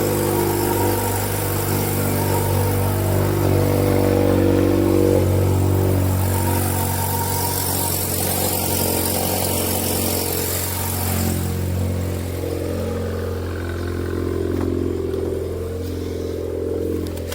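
2018 Honda Accord 2.0T's turbocharged 2.0-litre four-cylinder idling steadily after a cold start, really loud through a catless downpipe. The owner notes a small exhaust leak at the joint between the downpipe and the rest of the exhaust.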